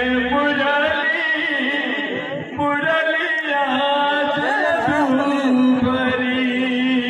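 Devotional kirtan singing: voices chanting a melodic line over a steady held note underneath.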